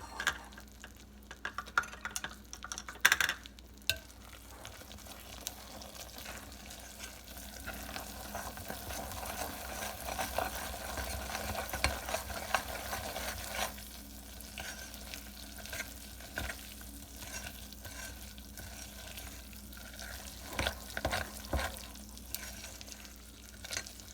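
A spoon stirring butter into hot peanut brittle syrup in a glass bowl, with knocks and scrapes against the glass. The mixture sizzles, and the hiss swells in the middle.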